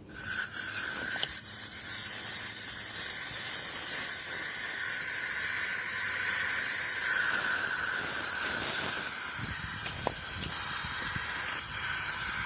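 Aerosol tyre-sealant can hissing steadily as its contents discharge through the tyre's valve stem into the tyre, starting abruptly.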